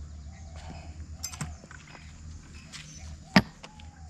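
Light metal clinks of chain and hooks as a hanging spring scale with its chains is handled, with one sharp metallic clank a little over three seconds in, over a steady low hum.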